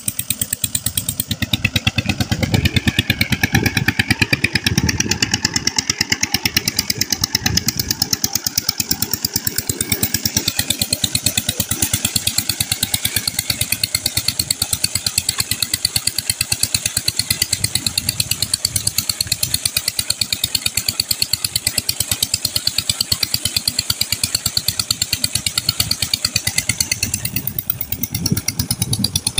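Old Petter-type diesel engine running steadily with a fast, even firing beat while it drives an irrigation water pump. Water gushes from the pump's outlet pipe underneath.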